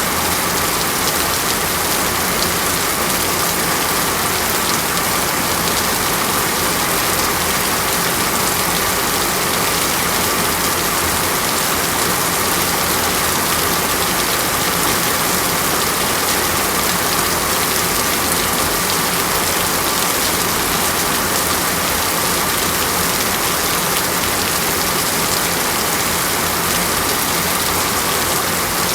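Steady, dense water noise, an even hiss and patter like heavy rain on a surface, with no change in level.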